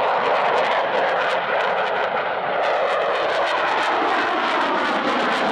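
Eurofighter Typhoon fighter jet flying a display pass in a steep climb, its twin EJ200 turbofan engines giving a loud, steady jet roar.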